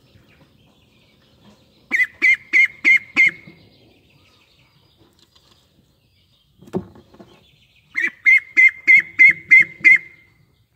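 A duckling of about four weeks calls in two quick runs of sharp, high peeps, about three a second. The first run has five peeps and the second seven, with a single bump between them.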